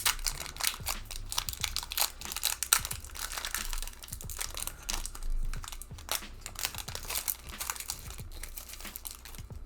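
Foil Pokémon booster pack wrapper crinkling and tearing as it is opened, a dense run of irregular crackles.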